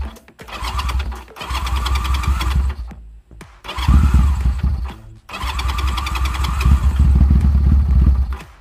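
Chinese 250cc ATV engine being cranked by its electric starter, with the choke on, in four bursts with short breaks between them.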